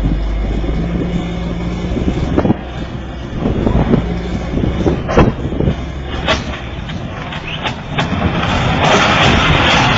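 Heavy machinery running, with several sharp knocks in the middle and a louder, denser hiss in the last two seconds.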